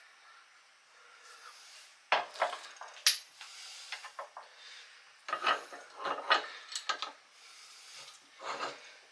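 Bursts of knocking, scraping and clatter from metal parts and tools being handled and worked, in three bouts with short lulls between.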